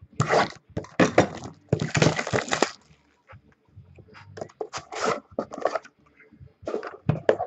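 Sealed box of trading cards being torn open: tearing and crinkling of wrapping and cardboard in several noisy bursts, the longest about two seconds in, followed by scattered clicks and rustles of handling.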